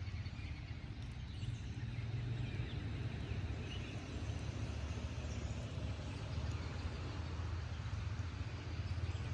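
Steady rush of rainwater running down a hand-dug drainage ditch, with a low rumble underneath.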